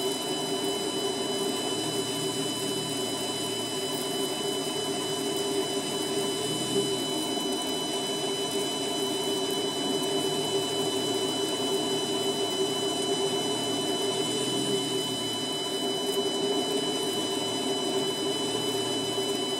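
7x12 mini lathe running steadily under load as a parting tool cuts through a spinning stainless steel bar, a continuous machine hum with a steady high whine.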